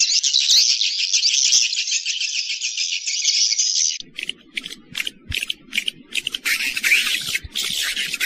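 Recorded swiftlet twittering, played as a lure sound for swiftlet houses. A dense, rapid, high chirping chorus cuts abruptly about four seconds in to sparser chirps and clicks over a low rumble.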